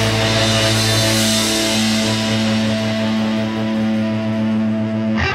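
Rock background music: one long chord held for several seconds, with a sudden change near the end.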